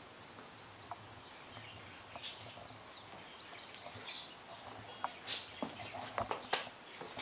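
Birds chirping and calling, faint at first and getting busier from about two seconds in, with a few sharp clicks or taps near the end.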